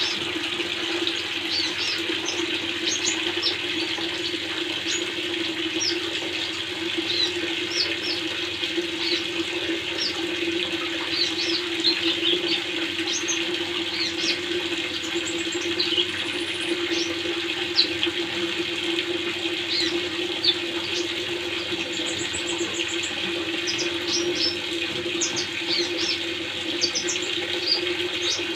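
Steady running, splashing water with a low steady hum under it, overlaid by many short, high, quick chirps of a sunbird (kolibri ninja) scattered throughout.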